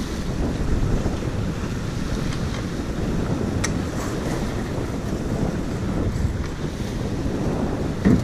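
Wind buffeting the microphone over water rushing along the hull of a J/111 racing sailboat under sail. A faint sharp click comes about three and a half seconds in, and a louder thump near the end.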